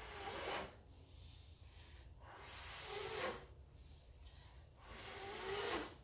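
A person blowing by mouth across wet, thinned acrylic paint on a canvas to push it into wave shapes: three long puffs of breath of about a second each, each swelling and then cutting off.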